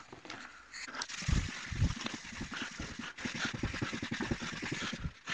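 Red Scotch-Brite abrasive pad scrubbed by hand over a painted ABS plastic car grille, a rapid run of short, scratchy back-and-forth strokes starting about a second in, as it sands off old flaking paint.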